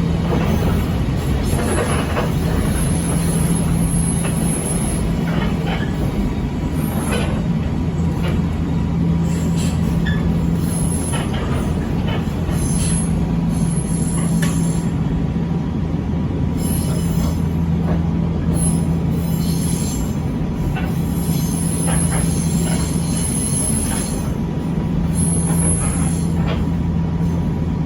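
Echizen Railway 5001 series electric railcar running steadily, with a continuous low rumble and hum, scattered clicks from the wheels and rails, and intermittent high-pitched wheel squeal.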